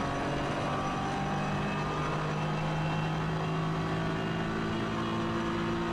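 BMW E46 325ti Compact's 2.5-litre straight-six race engine running hard down a straight, heard from inside the cabin. It holds a steady note that steps up a little in pitch about two seconds in.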